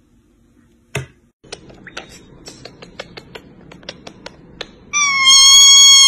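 A sharp click, then a run of light taps and clicks, then near the end a parrot's loud, long call held on one steady pitch for over a second.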